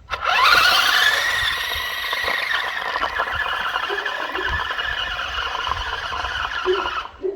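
Electric motor and gears of a Tamiya CC-01 radio-controlled car whining under throttle: the pitch rises quickly just after the start, holds steady for about seven seconds, then cuts off suddenly.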